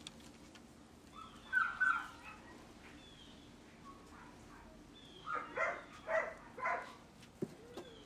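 A dog barks once briefly about a second and a half in, then gives four short, sharp barks in quick succession between about five and seven seconds in. Birds chirp faintly in the background.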